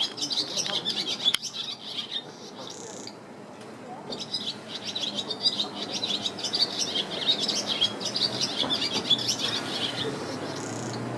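Barn swallows twittering: rapid high chirps in two long runs, with a pause of about a second and a half after the first, stopping about ten seconds in.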